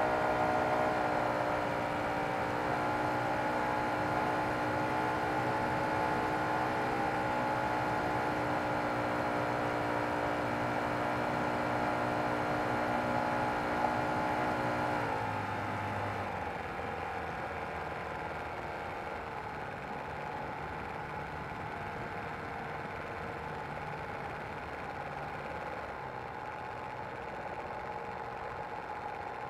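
The model aeroplane's O.S. FT-120 Gemini II twin-cylinder four-stroke glow engine, heard from on board, running steadily at flying power. About halfway through it is throttled back: the pitch drops sharply and it settles to a lower, quieter idle as the plane comes in to land on the runway.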